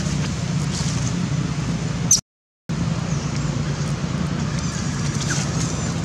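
Steady low mechanical hum over background noise, cutting out completely for about half a second a little over two seconds in.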